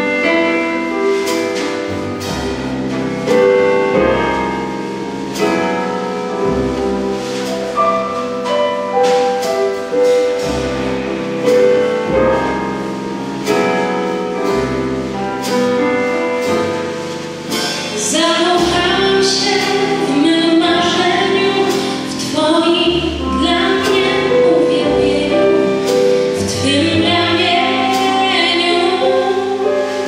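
A small jazz band of piano, double bass and drum kit playing an instrumental passage, with steady drum and cymbal strokes. About two-thirds of the way through, a woman's voice comes in singing over the band.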